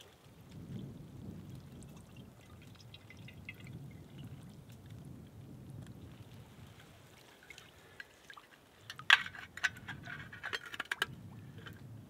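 Water trickling and dripping as a small metal cup scoops water from a shallow pool, with a louder run of splashes from about nine seconds in.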